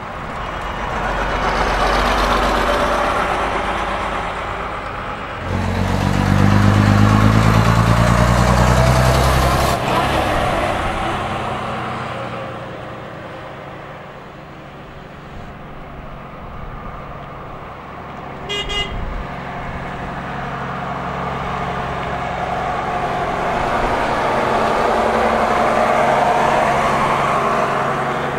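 Vintage double-decker buses driving past one after another, their diesel engines running; one passes with a strong engine note that falls slowly in pitch, and another approaches and grows louder near the end. A brief high toot sounds about two-thirds of the way through.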